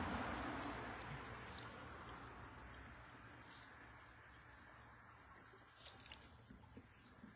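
Steady, high chirring of night insects, with soft sloshing of hands in shallow stream water that fades away over the first couple of seconds and a few light splashes near the end.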